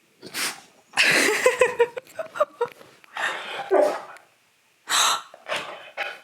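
A person gasping dramatically, a string of about five loud, breathy gasps, the longest lasting nearly two seconds.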